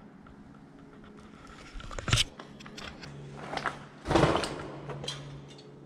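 Debris falling inside a crumbling concrete tower: a sharp crash about two seconds in, then a louder, longer clattering crash about four seconds in, echoing through the hall.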